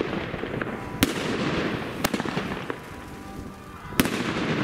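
Evolution Fireworks' Hexagon consumer firework going off: sharp shot reports about a second apart, with a gap before the last one, and noisy hissing between them as the shots rise and burst.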